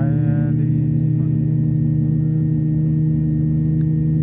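Steady droning hum inside an airliner cabin as the plane moves on the ground: several fixed low tones from the engines, unchanging throughout. A short rising vocal sound comes right at the start.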